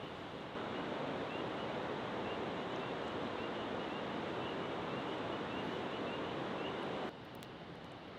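Steady rushing of flowing water, with faint high chirps repeating over it. It comes in suddenly about half a second in and cuts off abruptly about seven seconds in, leaving a quieter hiss.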